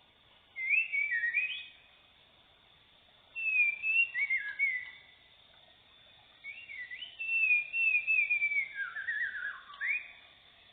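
White-rumped shama (murai batu) singing: three bursts of rich whistled phrases with quick slurs up and down. The longest comes in the second half and ends with notes dropping lower.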